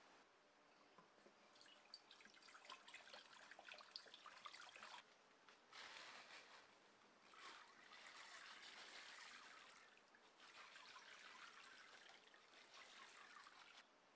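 Faint swishing and trickling of water as a hand stirs it around a steel shovel blade in a plastic tub, in several spells of a few seconds with short pauses between.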